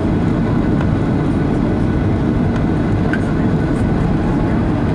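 Steady low rumble of cabin noise inside a Boeing 737-800 on approach, from its CFM56 engines and the airflow around the airframe.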